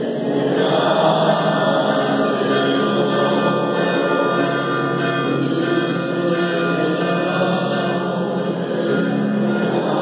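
A choir singing a slow, chant-like hymn, its voices holding long, sustained notes.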